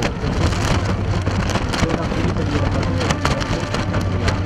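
Ship under way: a steady low engine drone with dense crackling noise over it.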